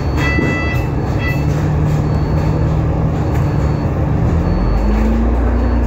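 Alexander Dennis Enviro500 MMC double-decker bus heard from inside, its engine and drivetrain running as it drives along, with a low hum that rises, eases off and steps up to a higher pitch about four and a half seconds in. A few short electronic beeps sound in the first second or so.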